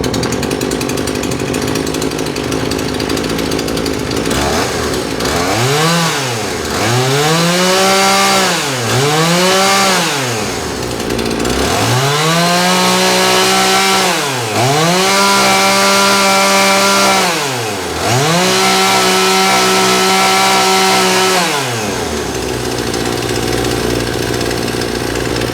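John Deere CS52 two-stroke chainsaw idling, then revved up and let back down to idle five times, each rev climbing to a high held pitch before dropping. The throttle is opened by hand at the carburetor because the saw's trigger is broken.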